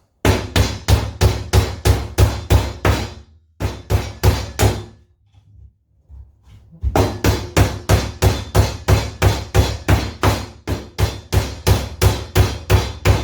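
Hammer driving nails into the glued wooden side joints of a beehive super box: quick, even strikes, about three a second, in two runs with a pause of about two seconds between them.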